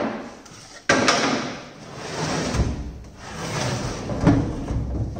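Wooden blocks being pulled out and moved: a sharp knock about a second in, then scraping and rumbling with a few smaller knocks.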